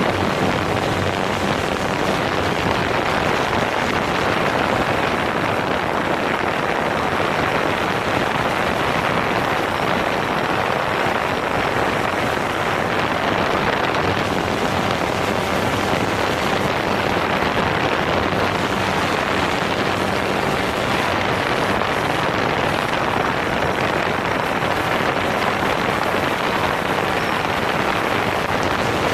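DJI Phantom 4 quadcopter's motors and propellers running in flight, heard from a camera mounted on the drone: a steady, loud whooshing whir with a faint low hum underneath.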